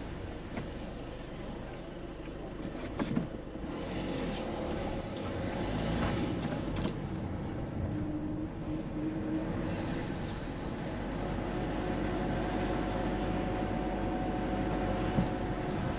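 Steady rumble of a moving vehicle, with faint steady whines that come and go and a sharp knock near the end.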